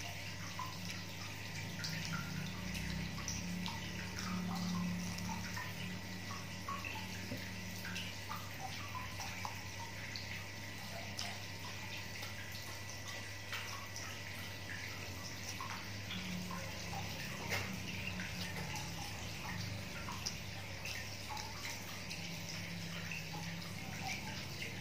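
A steady rushing noise with a low hum, sounding like running water, under faint scattered clicks of a fork on a plate and chewing.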